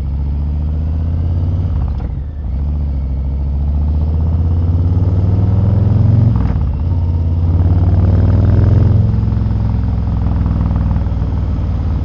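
Harley-Davidson Milwaukee-Eight 117 V-twin running through TAB Performance slip-on mufflers, accelerating through the gears. The exhaust note climbs in pitch, drops at each upshift about two, six and a half and nine seconds in, then settles to a steadier cruise.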